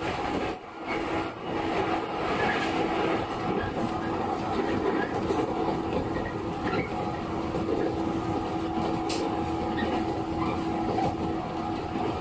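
Running noise of a JR 115 series electric multiple unit heard from inside the train: a continuous rumble of wheels on the track and motor noise, with a steady hum through most of it. The level dips briefly near the start.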